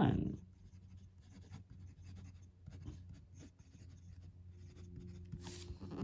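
An extra-fine Bock fountain pen nib writing on Clairefontaine paper: a faint, irregular run of short scratchy strokes as words are written by hand.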